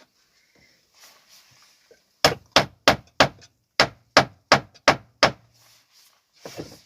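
Hammer striking a nail into wood: nine sharp blows about three a second, with a short pause after the fourth. The nail had come out of the board and is being driven back so it stays put.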